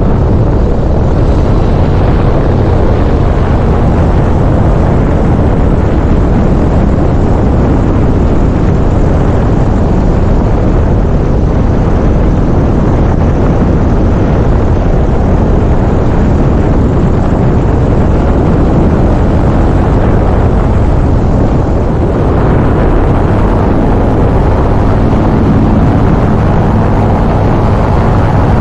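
Tandem paramotor trike's engine and propeller running steadily in flight, a loud unbroken drone heard from just ahead of the propeller cage.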